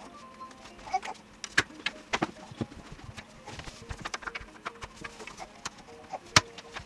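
Irregular light clicks and knocks of household things being handled and set down, a few sharper taps standing out, the loudest about six seconds in.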